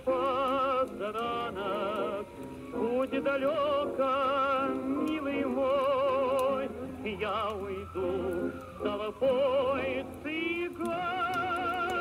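A voice singing long wordless notes with a wide, fast vibrato, in an operatic style, with short breaks between phrases. Faint crackles from the wood fire sound under the singing.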